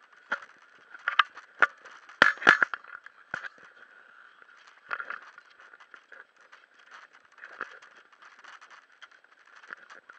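Handling noise from a small camera being turned and bumped: a string of close knocks and scrapes, loudest in a cluster about two to three seconds in, over a steady muffled hiss.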